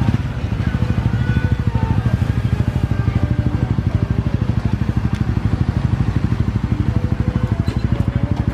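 Honda Winner X 150 cc single-cylinder motorcycle engine idling steadily with an even, rapid putter.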